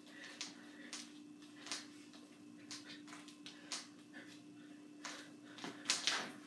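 Sneaker footsteps, stomps and scuffs on a hardwood floor from a person dancing: irregular knocks, getting busier near the end, over a steady low hum.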